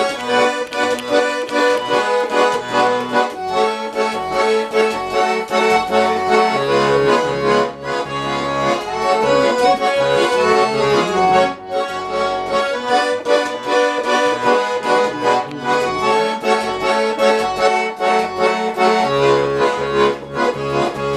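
Accordion playing a melody over bass notes in an instrumental break between sung verses.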